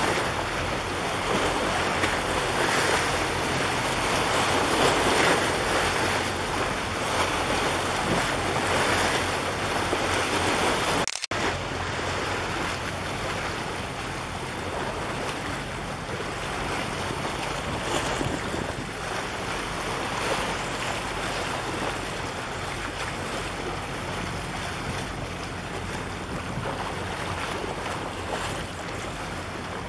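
Sea waves washing and splashing among concrete breakwater tetrapods, with wind buffeting the microphone. The sound cuts out for an instant about eleven seconds in, then carries on a little quieter.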